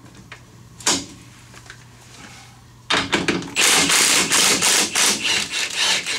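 Mechanic's tools working on the RZR's rear shock mounting bolt (Allen head on the back): a sharp click about a second in, then about three seconds of loud, rough, rasping tool noise with rapid irregular pulses from about halfway through.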